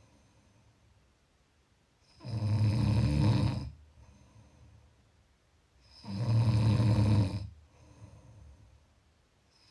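Snoring: two deep snores, each lasting about a second and a half, about four seconds apart, with quieter breathing between them.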